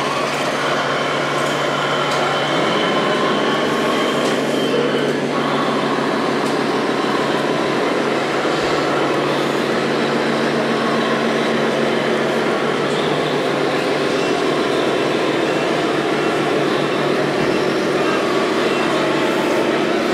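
Radio-controlled scale model forklift running, its engine-sound module droning steadily and picking up in pitch about two and a half seconds in.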